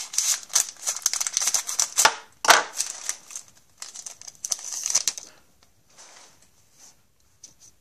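Plastic wrapper of a pack of hockey cards being torn open and crinkled in the hands, with dense crackling that dies down about five seconds in to faint handling of the cards.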